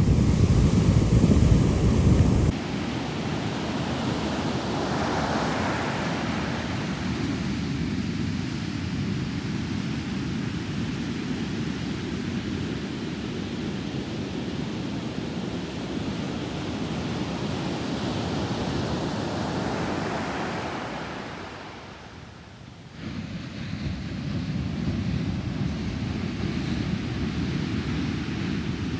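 Ocean surf breaking and washing up a sandy beach: a steady rush that swells and fades as the waves come in, dipping briefly quieter about three-quarters of the way through. At the start a louder deep rumble cuts off abruptly after about two seconds.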